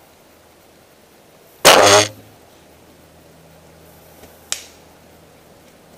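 A bow being shot at a deer: one loud, sharp release a little under two seconds in, followed a couple of seconds later by a fainter sharp click.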